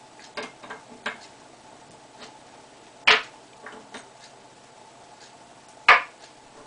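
Scattered light clicks and knocks of steel lathe tool bits and a four-way tool post being handled on a paper-covered wooden table, with two sharper knocks, one about three seconds in and one near the end.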